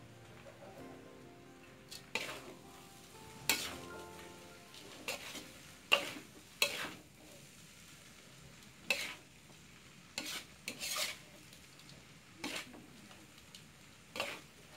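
Metal spatula scraping and tossing noodles in a sizzling wok during stir-frying: about ten sharp scrape-and-toss strokes at uneven intervals over a low steady sizzle.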